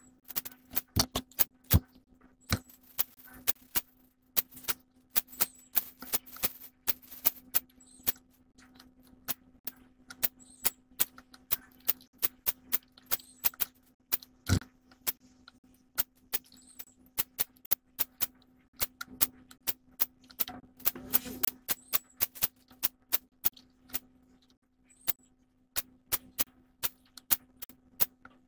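Irregular sharp clicks and ticks, sometimes in quick runs, over a faint steady low hum, as picked up by a nest-box camera's microphone.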